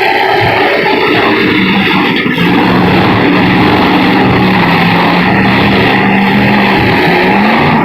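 Demolition-derby pickup truck engines running loudly, with a steady engine drone through the middle.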